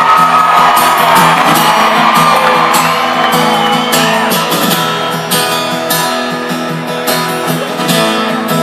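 Live amplified acoustic guitar strumming through a concert sound system in an instrumental passage of a country song, with shouts from the crowd over it.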